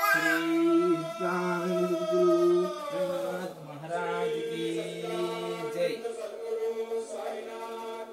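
Devotional chant: voices singing long, held notes, with short breaks between phrases.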